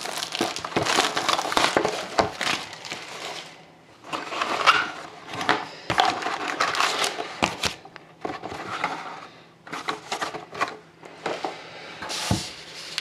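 Hockey card box being opened by hand: its plastic wrapper and cardboard crinkling and scraping, then its foil card packs handled. The noise comes in irregular bursts with a few short pauses.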